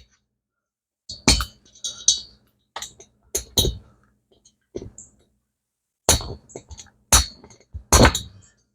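Irregular sharp metallic clinks and taps from small hand tools on a motorcycle cylinder head, working at the spring retaining clip on a valve guide. They come in clusters, with the loudest near the end.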